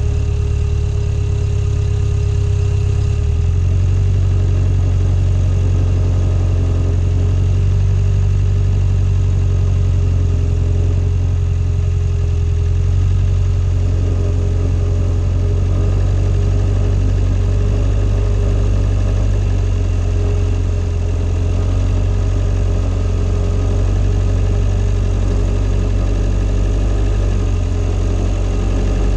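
Swamp buggy's engine running steadily under load as the machine crawls through boggy muskeg on low-pressure swamp tyres. The engine note steps up about three seconds in, and a steady whine runs over the drone.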